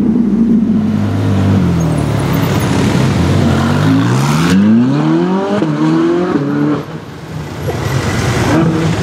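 Ferrari mid-engine V8s under hard acceleration: the F430's revs fall, then sweep up as it passes, and after a cut a 458's engine climbs through the gears in rising sweeps. The level dips briefly near the end before it revs again.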